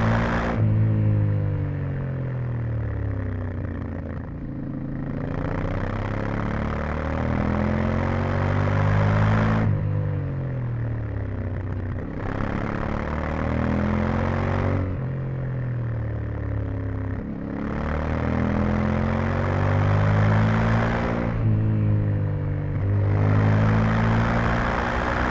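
Yamaha Ténéré 700's 689 cc parallel-twin engine with stock exhaust, heard onboard as the bike accelerates hard out of corners, then backs off on engine braking, about five times. A rushing noise comes up each time the throttle opens and cuts off as the revs fall.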